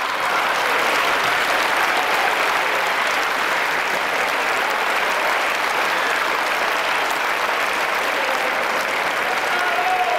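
Theatre audience applauding steadily after a joke's punchline.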